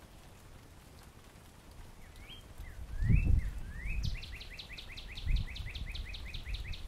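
Northern cardinal singing: a few rising slurred whistles, then a fast run of about fifteen downslurred notes, roughly six a second, that stops near the end. A few low thumps sound underneath, the loudest about three seconds in.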